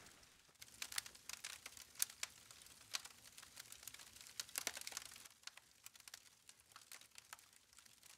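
Faint crackling of a hardwood lump charcoal fire: sharp, irregular clicks and pops, the loudest about two seconds in, as small hickory chunks are set onto the hot coals.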